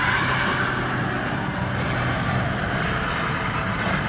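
Steady vehicle noise on a road: a truck running, with a loud, even rushing noise.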